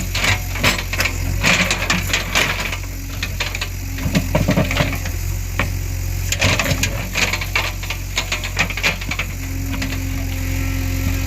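JCB 3DX backhoe loader's diesel engine running steadily, with repeated bursts of rattling and knocking from the machine at work.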